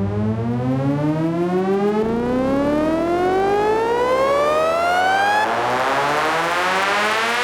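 Electronic music: a synthesizer riser, a buzzy tone rich in overtones gliding steadily upward in pitch, turning brighter about five and a half seconds in.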